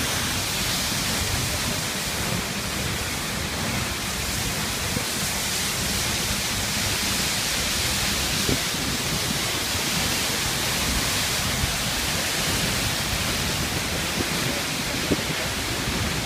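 Waterfall close by: a steady, dense rush of falling water, with a few brief faint ticks.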